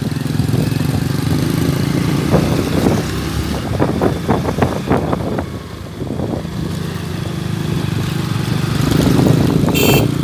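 Small motorcycle engine running steadily while riding along a rough rural lane, with scattered knocks and rattles from the bumpy road surface in the middle. A brief high-pitched sound comes in near the end.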